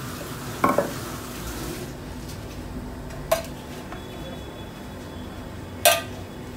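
Kitchen clatter: a wooden rolling pin knocked down on a stone counter, then two sharp clinks about two and a half seconds apart as a utensil strikes a stainless steel tray while filling is scooped out. The last clink is the loudest.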